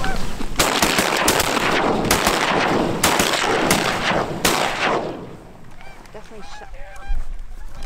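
Volley of shotgun fire from several hunters, many shots in quick succession over about four seconds. Afterwards Canada geese honk more quietly near the end.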